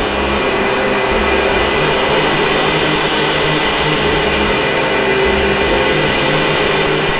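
Harsh noise from a Bugbrand modular synthesizer fed through an Electro-Harmonix Memory Man Hazarai delay: a dense wall of hiss with a few steady held tones and a low rumble that throbs on and off. The bright hiss cuts out near the end.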